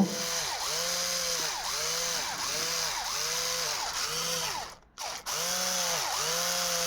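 Old electric drill with a 2 mm bit boring into a Victorinox knife scale, its motor speeding up and slowing down in quick pulses about one and a half times a second. It stops briefly a little past the middle, then runs again and holds a steady speed near the end.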